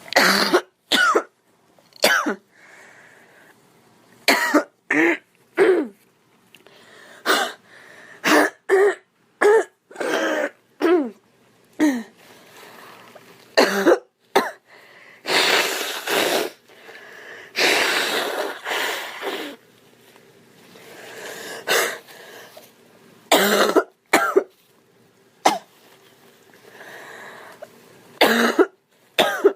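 A young woman coughing over and over, in single sharp coughs and quick runs of several, with two longer, drawn-out stretches a little past the middle.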